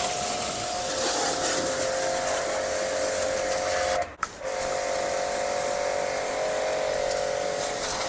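StarQ ST-25 2100-watt electric pressure washer running, its motor humming steadily under the hiss of the high-pressure water jet. The sound cuts out briefly about four seconds in and then starts again.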